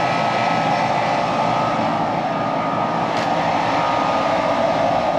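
Air-conditioning equipment running steadily: an even mechanical hum and rush with a constant whine over it, and a faint tick about three seconds in.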